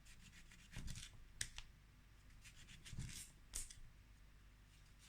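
A knife slicing a lemon into thin rounds: quiet cutting and scraping sounds with a few light clicks of the blade.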